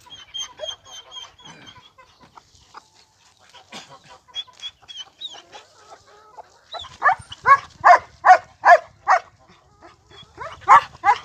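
Chickens calling: a string of short high peeps in the first two seconds, then from about seven seconds a run of loud, rapid repeated calls, about three a second, which start again near the end.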